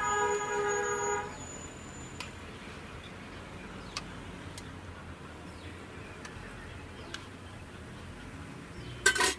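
A vehicle horn sounds for about a second, over a steady hiss of bonda (undampori) deep-frying in oil in a large iron kadai, with a few light ladle taps. A loud sharp clatter near the end.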